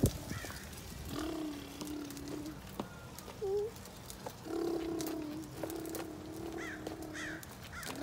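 A toddler making engine noises with her voice: a steady, droning hum held for about a second at a time, four times with short breaks between, like a play motorbike going "brrrm".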